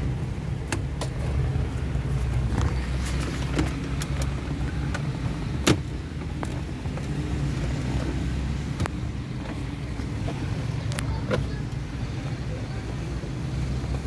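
Plastic dashboard trim and the stereo panel being handled and pressed into place: scattered sharp clicks and knocks, the loudest about six seconds in, over a steady low rumble.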